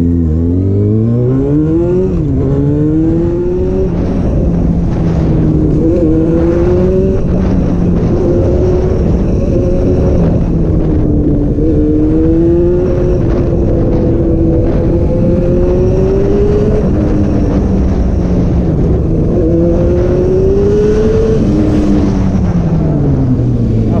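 Yamaha FZ6's 600cc inline-four engine on the move. The engine climbs in pitch at first, then runs at a fairly steady pitch that rises and dips gently with the throttle, and falls off near the end as the bike slows. A steady rumble of wind noise on the microphone lies underneath.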